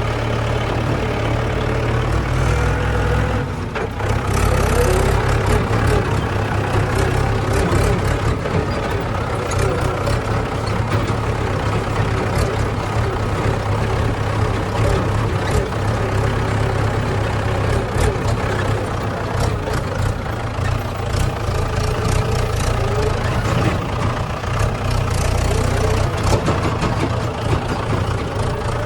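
Heavy diesel engine of earth-moving machinery running steadily, with scattered knocks and clatters while soil is filled and levelled.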